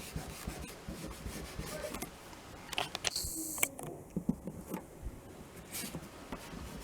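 Quiet rubbing and handling on a wooden breadboard as pencil lines are wiped over to blend them, with scattered small clicks and a brief crackle about three seconds in.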